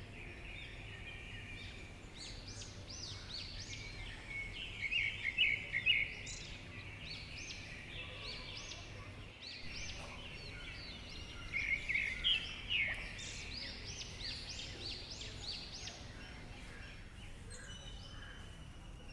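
Small birds chirping in bursts of quick, high chirps with quieter gaps between, over a faint steady low hum.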